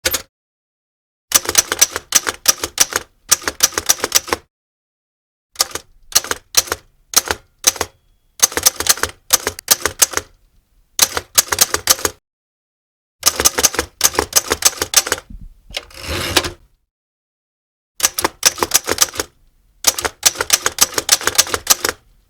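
Typewriter keys being struck in quick bursts of rapid clacks, broken by short pauses. Near the two-thirds mark comes a longer rasping sound of just under a second.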